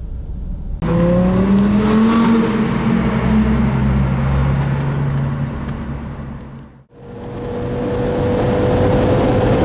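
Audi R8 GT Spyder's 5.2-litre V10 running hard under acceleration, its note climbing in pitch and then holding steady. About seven seconds in the sound drops out abruptly, then a steadier engine note with a rushing road noise swells back in.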